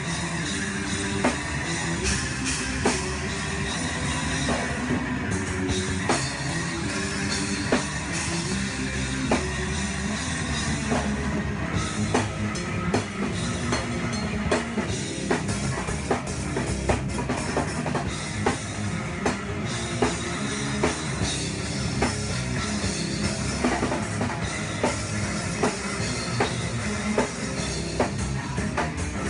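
Rock band playing live: a drum kit driving a steady beat with bass drum and cymbals, under electric bass and electric guitar.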